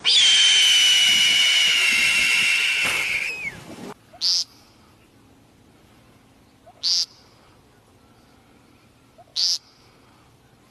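A loud, steady high-pitched tone lasting about three and a half seconds that slides down and cuts off, then a bird's short buzzy call, repeated three times about two and a half seconds apart.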